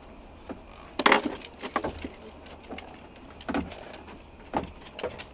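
A few knocks and thumps on a fishing boat, from fish and gear being handled, the loudest about a second in.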